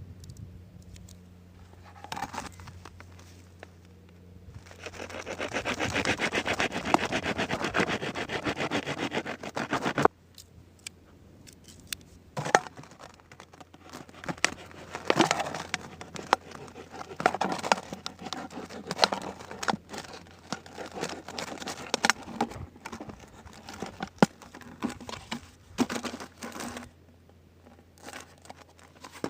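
Plastic being handled, crinkling and crackling while a fish trap is made from it. A loud stretch of dense rustling runs from about five to ten seconds in, followed by scattered clicks and crackles.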